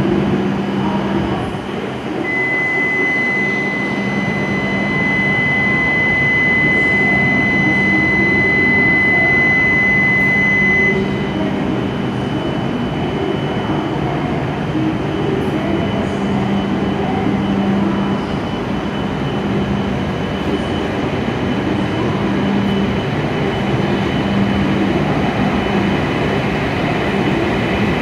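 E7-series Shinkansen trains humming at a station platform, with a steady high electronic tone sounding for about nine seconds early on. Near the end, the Kagayaki trainset starts pulling out.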